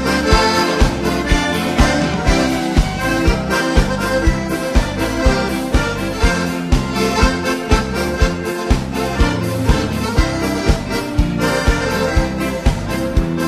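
Gaúcho accordion music: a piano accordion leads an instrumental passage over bass and drums, which keep a steady beat of a few strokes a second.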